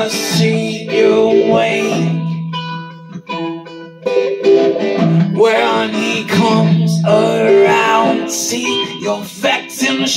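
A man singing to his own strummed acoustic guitar, with a quieter stretch of the guitar alone about two to four seconds in.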